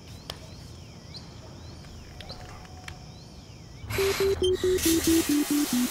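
Quiet morning ambience with faint, repeated bird chirps. About four seconds in, shower water starts spraying and a pulsing synth line comes in, stepping down in pitch.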